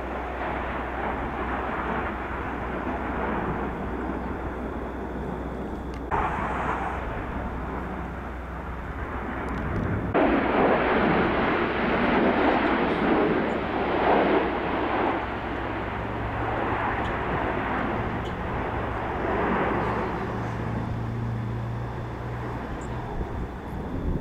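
Aircraft engine noise heard from the ground, a steady rushing sound that grows louder after a sudden change about ten seconds in, with a low steady hum in the later part.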